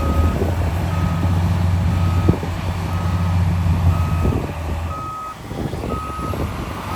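Heavy earthmoving machine's reversing alarm beeping about once a second, a single steady pitch, over a diesel engine's deep running drone that eases off about five seconds in.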